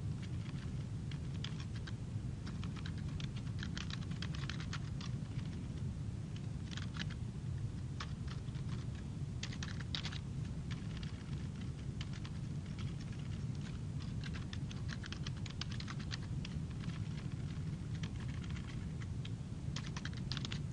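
Computer keyboard typing in bursts of keystrokes with short pauses, over a steady low hum.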